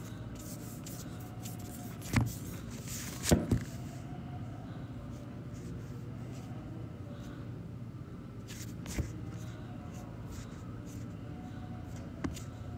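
Phone handling noise: a few light knocks and taps, the loudest about three seconds in, over a steady low hum.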